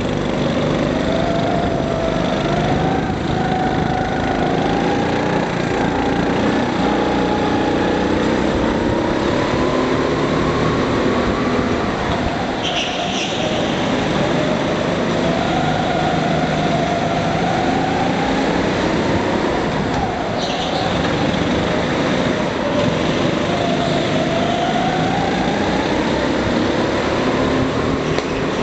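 Go-kart engine running hard, its pitch repeatedly climbing as it revs up and then dropping back as it eases off, over and over through the lap.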